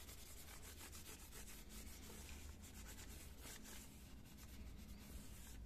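Faint rubbing of a paper towel wiping a dirty laser-printer fuser part clean, in many quick, scratchy strokes.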